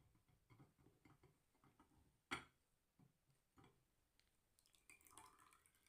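Faint clicks and light taps of a spoon and glassware being handled, with one sharp clink a little over two seconds in and a short soft scrape near the end.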